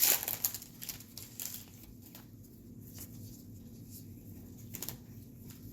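Crinkling of a foil trading-card pack wrapper for about the first half second, then quieter rustling and a few faint clicks as cards are handled.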